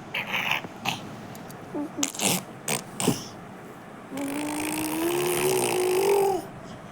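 A series of short clicks and brief rattles, then a long, steady vocal sound held for about two and a half seconds, starting about four seconds in.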